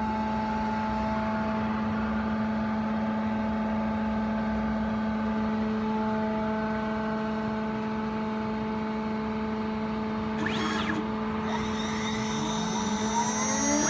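2.2 kW CNC router spindle running steadily at 14,000 rpm, a constant whine. From about twelve seconds in, rising tones join it and it gets louder as the machine starts moving into its first cut.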